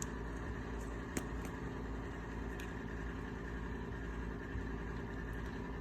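Steady low mechanical hum, like a fan or appliance running, with a few faint light taps.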